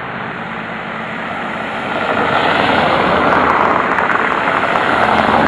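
Road traffic on a wet, slushy street: car engines and tyres hissing on the slush, swelling louder from about two seconds in as a car comes close.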